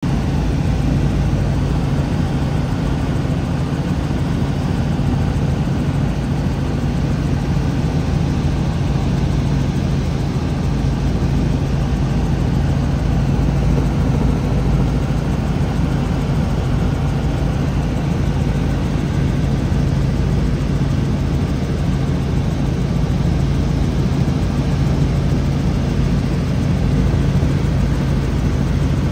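Steady engine drone of a small aircraft, heard from on board, with a constant low hum that does not change.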